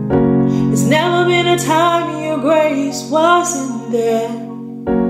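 A woman singing one slow line of a gospel worship song over held keyboard chords. Her voice comes in about a second in and trails off near the end, and a new chord is struck just before the end.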